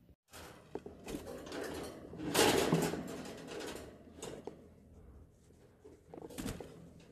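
Clattering and rustling around a wire birdcage, with sharp clicks and a louder burst about two and a half seconds in.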